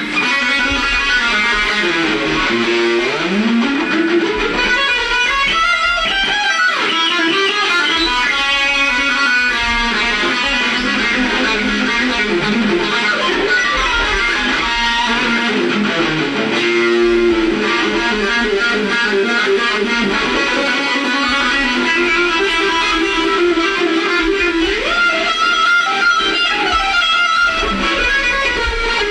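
Electric guitar playing a lead line in a band jam, with notes that slide and bend upward.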